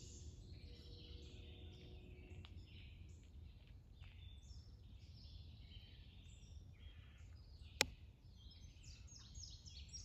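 Several songbirds chirping and trilling in the background over a low, steady rumble, with one sharp click near the end.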